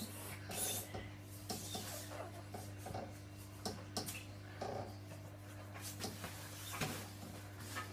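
Rope-ladder swing with wooden rungs in use as a child swings on it: faint scattered rubbing and light knocks of rope and wood, over a steady low hum.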